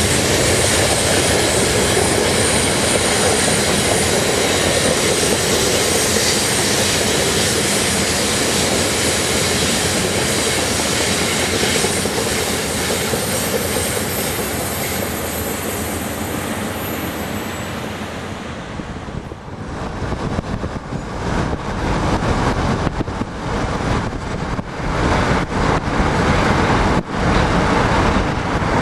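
Amtrak Superliner passenger cars rolling past close by, wheels clattering over the rails, fading slowly as the last car goes by. About two-thirds of the way through the sound changes abruptly to road and wind noise from a moving car.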